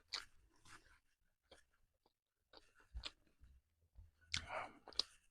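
A person chewing food close to the microphone: faint, scattered mouth clicks and soft crunches with quiet gaps between them, a few more together near the end.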